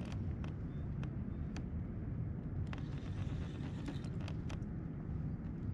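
Steady low rumble of wind buffeting the camera microphone, with scattered light clicks and taps from handling the spinning rod and reel during a fish fight.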